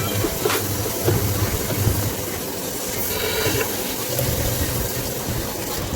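Water spraying with a steady hiss.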